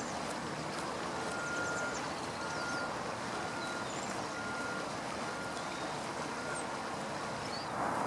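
A reversing vehicle's backup alarm beeping six times, about once a second, each beep a short steady tone at one pitch, stopping near the end, over a steady background of traffic noise. A few faint, high, thin bird calls come through.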